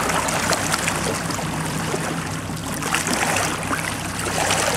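Seawater splashing and sloshing against a boat's hull as a hooked bull shark thrashes alongside, with a steady low hum underneath.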